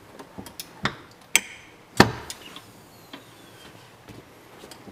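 Clamshell heat press springing open after its handle is pressed down and released: a series of sharp metallic clunks and clicks from the upper platen and handle linkage, the loudest about two seconds in.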